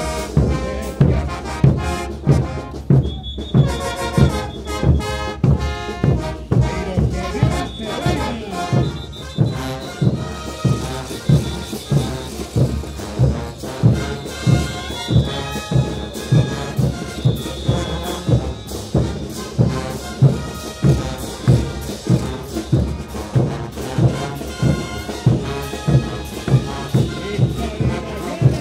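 Brass band playing a morenada: trumpets and trombones carry the melody over a steady, heavy drum beat.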